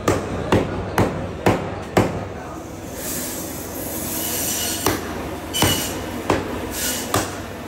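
Butcher's cleaver chopping through meat and bone onto a wooden block: five strikes about half a second apart, then a few more, spaced further apart, with a steady hiss behind them partway through.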